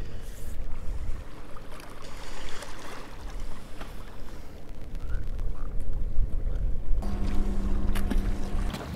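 Wind buffeting the microphone, with waves washing against shoreline rocks. About seven seconds in, a steady low hum with a few clicks joins for the last couple of seconds.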